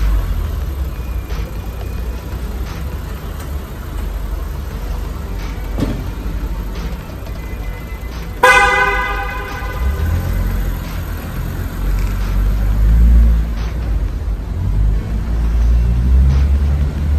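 Toyota Crown (S180) engine running with a low rumble, and a car horn sounding one blast of about a second and a half about halfway through. The engine then gets louder as the car pulls away.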